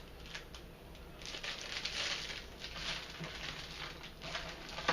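Plastic kit parts and their bags being handled: irregular rustling and light clicks.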